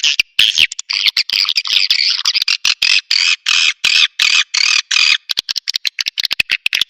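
Swiftlet lure call: a fast, high twittering of swiftlet chirps, broken again and again by abrupt gaps. It runs densely for the first five seconds, then turns into a quicker series of short, clipped chirps near the end.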